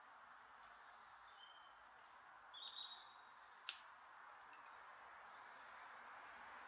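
Faint birdsong: scattered short, high chirps from small birds over a steady, quiet background hiss, with a single sharp click a little past halfway.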